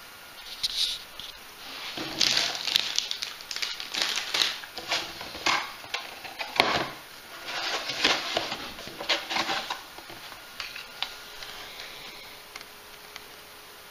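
Irregular rustling and crackling of packaging being handled, in clusters from about two seconds in until about ten seconds in.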